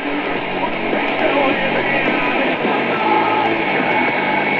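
Heavy metal music with guitars, received on the AM medium-wave band at 1500 kHz and played through the RADIWOW R-108 pocket radio's speaker. It comes in strong and steady, with the thin, treble-less sound of AM reception.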